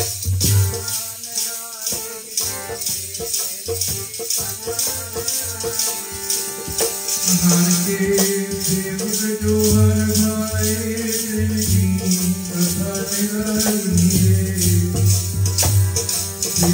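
NAGI harmonium playing a melody of sustained reed notes, with shaken or struck percussion keeping a steady, even beat over it.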